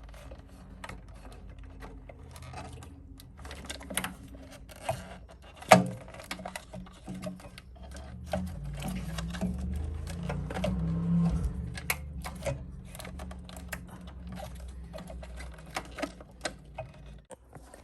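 Irregular clicks, taps and rattles of parts and tools being handled while a refrigerator is taken apart, with one sharper knock about six seconds in, over a low hum that swells in the middle.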